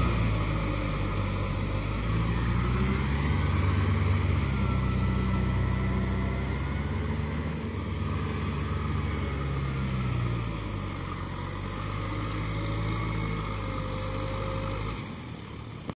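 Kubota M6040 SU tractor's diesel engine running steadily under load while driving a rotary tiller through flooded rice-field mud, its pitch wavering slightly. The sound grows fainter as the tractor pulls away and drops off sharply near the end.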